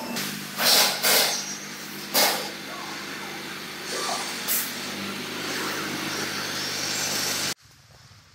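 Repair-shop background noise: a steady hum with several short, loud hissing bursts, cut off suddenly near the end.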